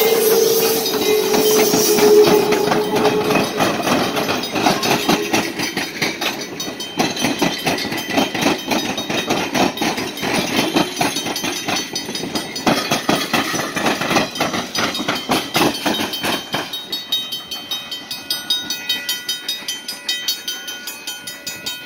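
1919 steam locomotive No. 107 passing close by, with steam hissing and a held tone in the first few seconds. Then its passenger coaches roll past, their wheels clacking rhythmically over the rails. For the last few seconds, after the train has gone, the grade-crossing bell rings with a steady, regular beat.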